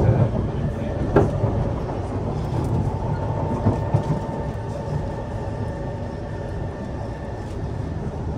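Kawasaki C151 metro train running along the track, heard from inside the car: a steady rumble of wheels on rail with two sharp clacks about one and four seconds in, and a steady whine settling in after about three seconds.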